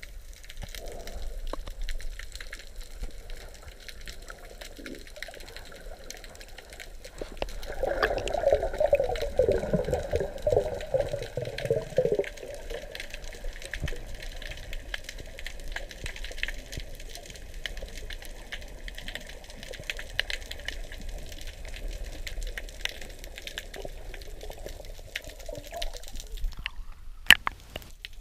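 Muffled water sounds heard through an underwater camera housing on a freediver: sloshing and bubbling, louder and busier for a few seconds about a third of the way in, with scattered small clicks and one sharp click near the end.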